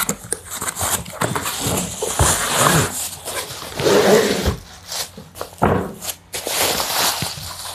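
Tripod in a plastic bag being pulled out of its cardboard box: cardboard scraping and the plastic wrapping crinkling and rustling in irregular handling bursts.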